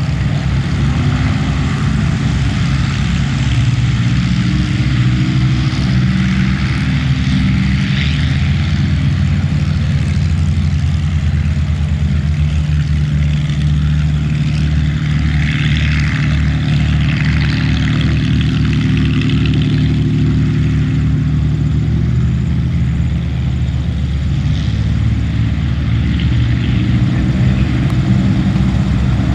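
Three Supermarine Spitfires' Rolls-Royce piston aero engines, a Griffon and two Merlins, running together in a loud, continuous drone of propeller engines whose pitch wavers slightly.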